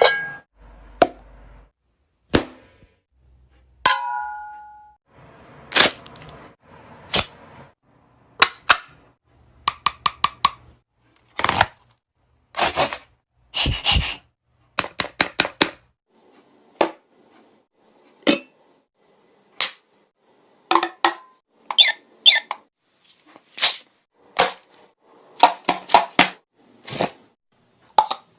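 A person making a string of sound effects: short sharp pops and clicks, some in quick runs of three or four, with a brief ringing ding about four seconds in and a short warbling sound near the end.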